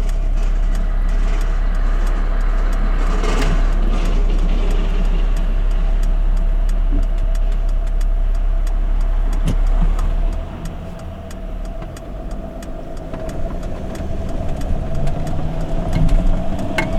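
Refrigerated delivery van driving, heard from inside the cab: engine and road noise with a strong low rumble and a steady whine. The rumble drops away about ten seconds in as the van slows, then the noise builds again near the end.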